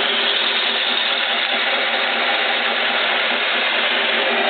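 Stanko 6T10 vertical milling machine running steadily, its spindle turning an end mill at about 560 RPM through a 10 mm steel plate, with a constant, even mechanical noise.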